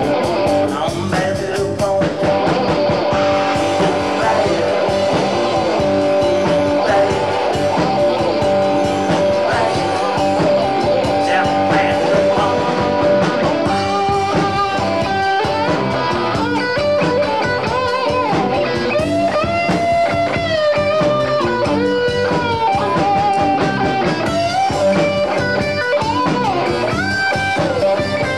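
Live rock band playing: an electric guitar lead with bent notes over drums and bass guitar.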